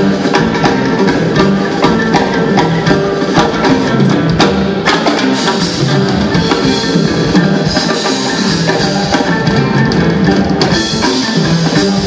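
A live jazz ensemble playing: oud, kanun, piano, guitar, bass and drum kit, with busy percussion strokes over the plucked and keyed instruments.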